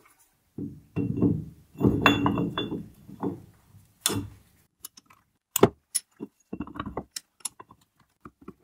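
A freshly machined steel tool holder blank scrapes as it slides along the dovetail of a lathe's quick-change tool post to test its fit. Then come several sharp metallic clicks and clinks as the block is seated on the post.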